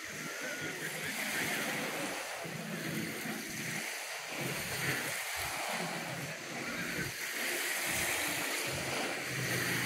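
Outdoor lakeshore ambience: gusts of wind rumbling on the microphone over small waves lapping, with faint voices of people.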